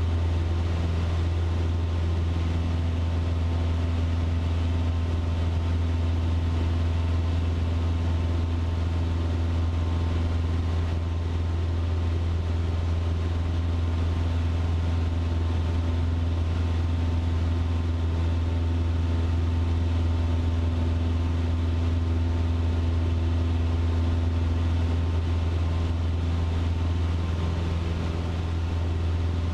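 Cessna 150's four-cylinder Continental O-200 engine and propeller running steadily in flight, a deep unbroken drone as heard inside the cabin.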